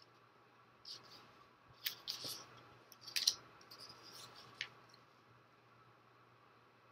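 Hands handling a skein of yarn and its paper label: a few short, faint rustles and soft clicks about a second apart.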